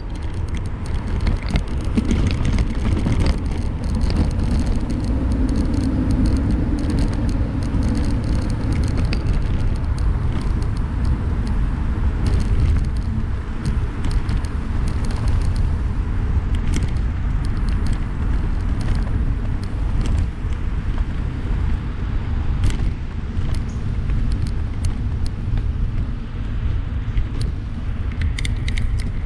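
Electric bike being ridden at speed: a steady low rush of wind and tyre noise with scattered light clicks.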